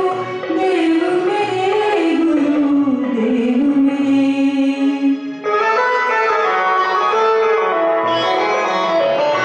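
Woman singing a Hindi devotional bhajan over a Roland XPS-10 keyboard and a steady beat. About halfway through her voice stops and the keyboard carries on alone with an instrumental melody.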